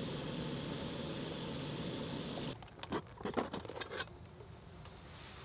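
Hot water poured in a steady thin stream from a stainless kettle into a drip coffee bag. The pour cuts off suddenly about two and a half seconds in and gives way to several light metallic clinks and knocks as a metal mess tin is handled.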